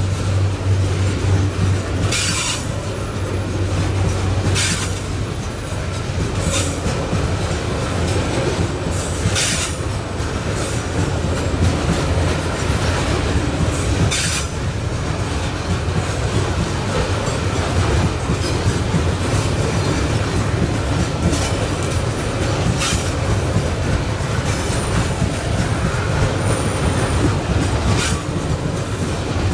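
Loaded coal hopper wagons of a long freight train rolling past on a curve: a steady low rumble of steel wheels on rail, broken every few seconds by brief high-pitched squeals from the wheels.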